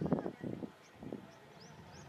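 People talking briefly at the start, with a small bird's short rising chirps repeating about twice a second.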